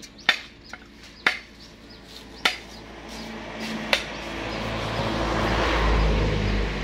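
Machete knocking around the middle of a husked coconut to crack the shell in two: four sharp knocks, roughly a second apart. From about halfway a rushing noise with a low rumble swells up, loudest near the end.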